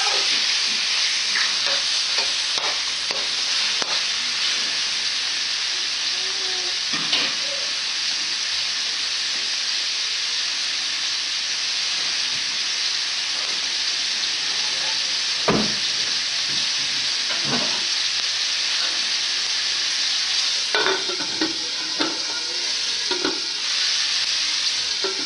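Chicken pieces frying in hot olive oil in a wok, a steady sizzling hiss, with a metal spatula stirring and scraping the pan at the start and a few short knocks later on.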